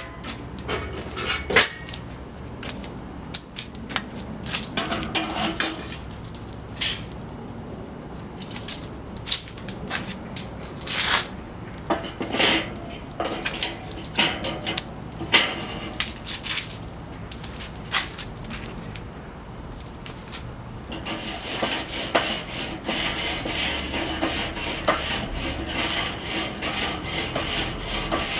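Metal tongs clinking and scraping on a charcoal kettle grill's cooking grate, in scattered knocks and clanks. About two-thirds of the way through, this changes to quick, continuous back-and-forth scraping across the grate.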